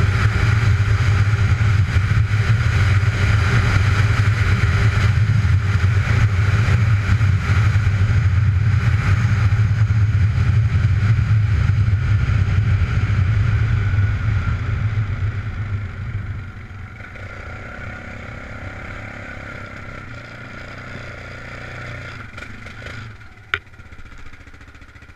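Off-road vehicle's engine running steadily under throttle while riding. About fourteen seconds in it eases off and drops to a quieter, lower running sound. A single sharp click comes near the end.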